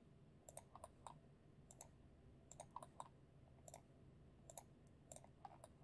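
Computer mouse clicking: about a dozen faint, short clicks at irregular intervals, as lines are picked and the view is zoomed, over a low room hum.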